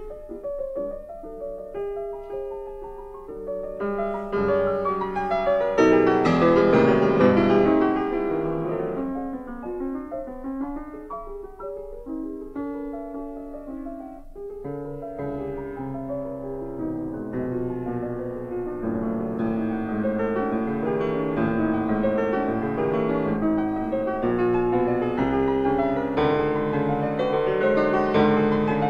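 Background piano music: slow melodic playing that swells louder about six seconds in and builds again near the end.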